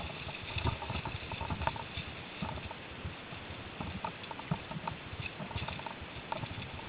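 Mountain bike riding over a rough dirt forest trail: irregular low thumps as the bike jolts over bumps, with a running clatter of small clicks and rattles.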